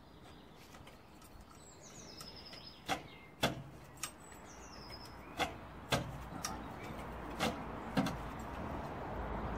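About seven sharp knocks and clunks at irregular intervals, over a low rumble that grows louder toward the end.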